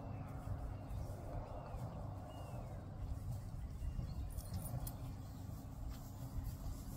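Faint outdoor background: a steady low rumble with a few faint bird chirps.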